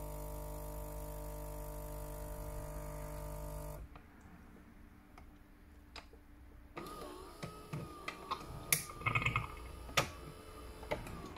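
Saeco Incanto espresso machine's pump humming steadily as the shot finishes pouring, then cutting off abruptly about four seconds in. After that the machine is quieter, with a few clicks. From about seven seconds in a thin whine sets in along with several sharp clicks and knocks.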